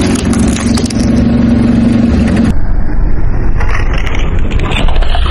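Car engine running while a tyre rolls slowly over small objects on asphalt, with crackling and crunching. The sound changes abruptly about two and a half seconds in.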